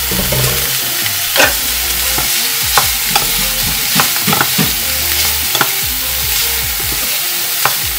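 Fusilli pasta being stirred with a wooden spoon in a small enamel pot of frying bacon and garlic oil: a steady sizzle, with irregular knocks and scrapes of the spoon against the pot.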